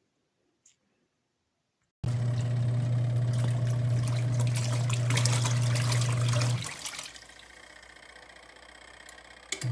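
Mini twin-tub washing machine's wash motor churning water in the tub with a steady electric hum, starting suddenly about two seconds in. The motor stops for about three seconds while the water settles, then clicks back on near the end: the wash pulsator pausing before it turns again.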